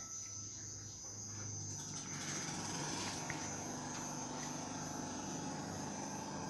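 Insects chirring steadily: a high continuous trill with faint regular pulsing, about two to three pulses a second, over a low hum.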